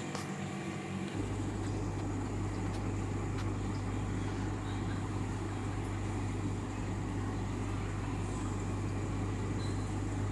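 A steady low machine hum that comes in suddenly about a second in and holds, over a steady rushing noise.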